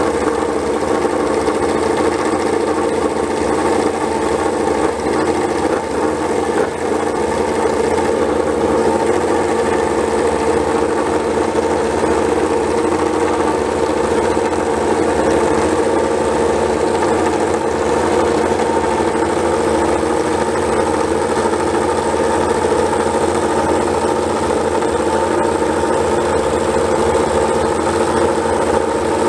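Yamaha YZR-M1 MotoGP bike's inline-four engine idling steadily on its paddock stand.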